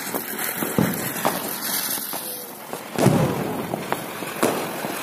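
Diwali ground fountain fireworks hissing and crackling as they spray sparks, with several sharp firecracker bangs over them. The loudest bang comes about three seconds in.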